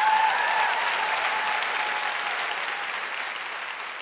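Audience applause, loudest at the start and slowly fading away.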